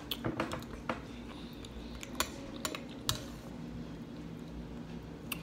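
Metal spoon clinking against a glass bowl of oatmeal, several sharp separate clicks spread out over a few seconds.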